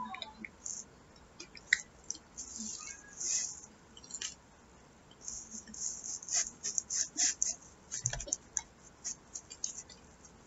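A person chewing pizza close to the microphone: a run of short mouth clicks and smacks, busiest in the second half.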